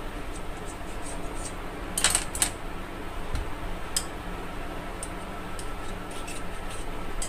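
Kitchen knife cutting through a ball of soft flour dough and tapping on a granite countertop: a scatter of short sharp clicks, the loudest two close together about two seconds in, with fainter ticks between, over a low steady hum.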